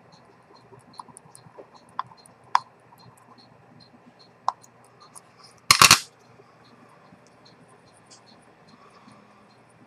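Small metallic clicks from handling a vintage Rolex 6694's movement and winding crown, with a short, louder clatter a little over halfway through. Faint, regular ticking about two or three times a second runs underneath.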